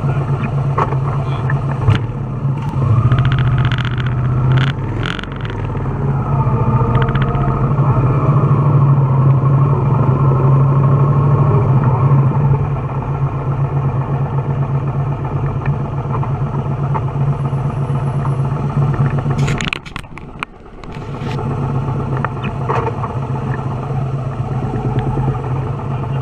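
Motorcycle engine running steadily while riding, with the pitch rising and falling in the first several seconds; the sound briefly drops away about twenty seconds in.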